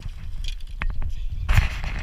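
A hooked fish thrashing and splashing at the water's surface beside a boat as it is netted, the splashes loudest from about a second and a half in, over a steady low rumble.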